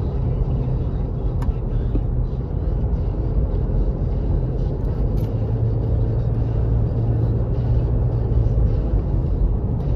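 Steady low rumble of a car's tyres and engine heard from inside the cabin while driving at road speed, with a low drone that grows stronger about five seconds in.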